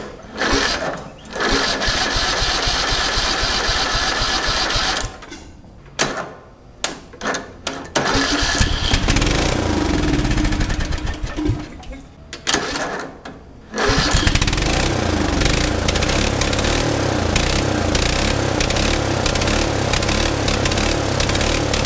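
A riding mower engine is cranked over by its starter, sputters and catches in bursts, and dies. It then runs on steadily from about two-thirds of the way through, its speed rising and falling. It fires now that its missing push rods have been replaced and the valves are working again.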